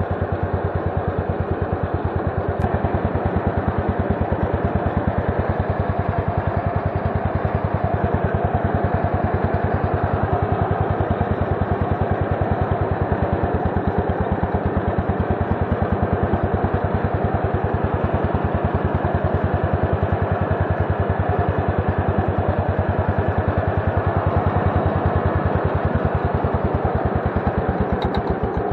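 Engine of a 64-year-old Yazoo 60-inch mower running steadily while cutting grass, its firing strokes coming as a rapid, even pulse.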